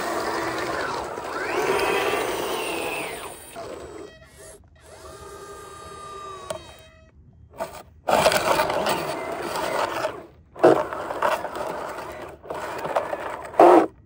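Electric drive motors and gear trains of RC tracked skid steer loaders whining, the pitch gliding up and down. About halfway through this gives way to gravel crunching and scraping under the tracks and bucket, with a couple of sharper scrapes near the end.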